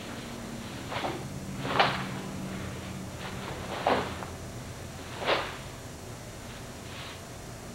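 Sharp snaps of a cotton karate uniform as kenpo strikes and a kick are thrown: four distinct cracks spread over several seconds, the loudest about two seconds in, and a fainter one near the end.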